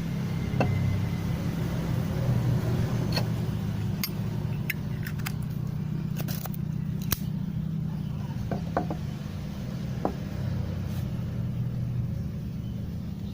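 Scattered light metallic clicks and clinks from handling a Zippo lighter and its petrol-filled insert, over a steady low hum.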